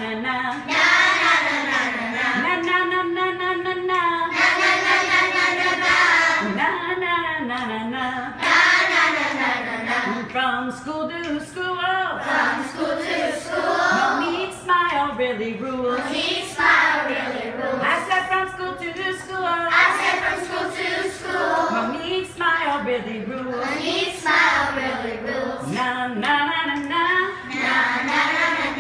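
A group of children singing a chant-style song together, without instruments.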